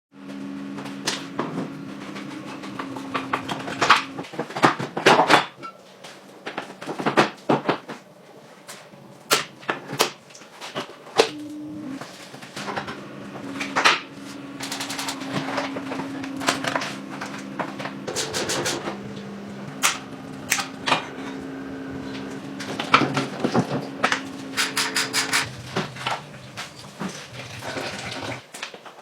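Irregular clinks, clicks and knocks of hand tools and metal parts being handled, over a steady low hum.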